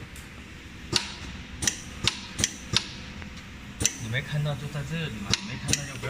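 Sharp clacks, about eight of them at irregular spacing, with faint low speech about four seconds in.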